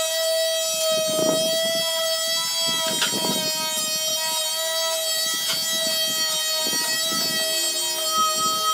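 Electric orbital sander running with a steady high whine as it sands plywood shelf panels, with a rougher rasp every couple of seconds as the pad is pushed across the wood.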